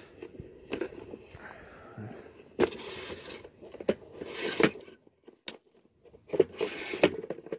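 Camera tripod's legs being lowered: a string of sharp clicks and scrapes from the telescoping leg sections and their locks, with handling noise between them.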